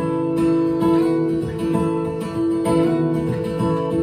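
Acoustic guitar strummed and picked in a steady rhythm between sung lines of a folk song, with ringing chords.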